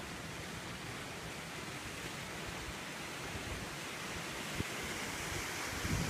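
Steady rushing hiss of the Kinchkha waterfall, heard from the top of the gorge.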